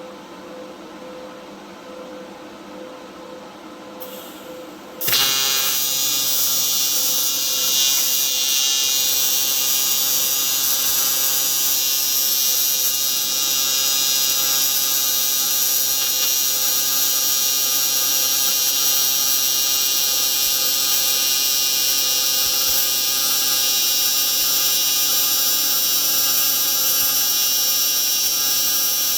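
AC TIG welding arc of a Primeweld 225X on aluminum, set to 120 Hz AC frequency and 95 amps: a loud, steady, high-pitched buzz that starts suddenly about five seconds in and holds on. Before it starts, only a quieter steady machine hum.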